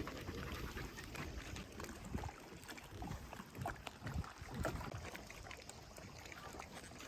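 Faint low rumble of wind on the microphone, with scattered soft thumps and rustles.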